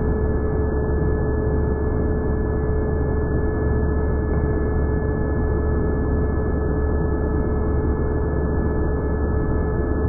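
Vacuum cleaner running steadily: a continuous rushing drone with a steady whine-like tone over a low hum, sounding muffled with no high end.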